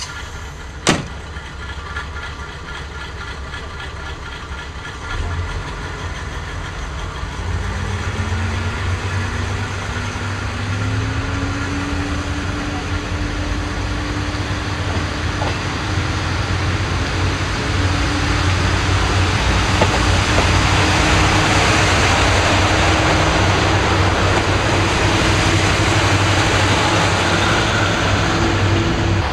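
KiHa 58 diesel railcar engines idling, with a sharp knock about a second in; from about seven seconds the engines rev up with a rising note as the train pulls out, growing steadily louder.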